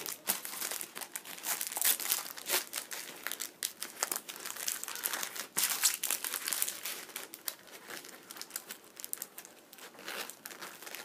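Rustling and crinkling of a treated-canvas bag with clear plastic pockets as school supplies are pushed and shuffled into it by hand, with many small irregular clicks and crackles. The handling is busiest in the first half and eases off toward the end.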